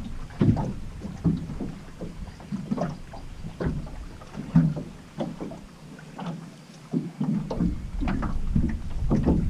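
Small waves slapping irregularly against the aluminum hull of a jon boat, a string of hollow knocks, with wind rumbling on the microphone.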